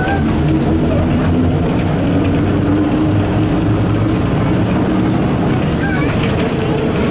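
Diesel engine of an Ikarus 260.50 city bus running as the bus drives along, heard from inside the cabin: a steady drone whose pitch shifts slightly.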